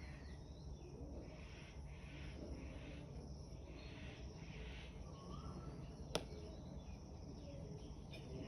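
Faint outdoor ambience: a low steady rumble and hiss, with a short whistled glide about five seconds in and a single sharp click about six seconds in.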